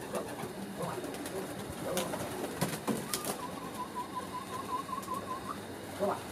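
Pigeons cooing around a rooftop pigeon loft, with scattered sharp clicks. About three seconds in, a thin warbling tone comes in and holds for about two seconds.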